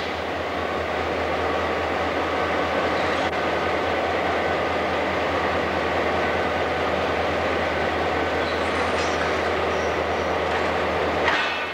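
Algoma Central F-unit diesel locomotive running at a steady idle, a constant engine hum. A short hiss comes near the end.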